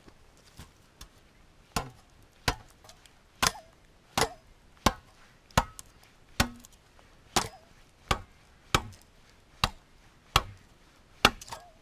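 A blade chopping into wood: a steady series of sharp blows, about three every two seconds, after a couple of lighter taps at the start.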